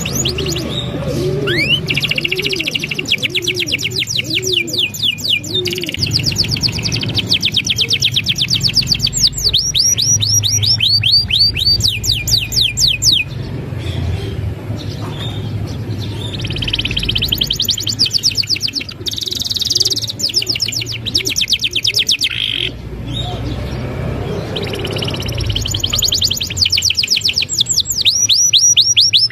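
Domestic canary singing in full song: long, fast trills and rolls of rapidly repeated high notes, with short breaks between phrases.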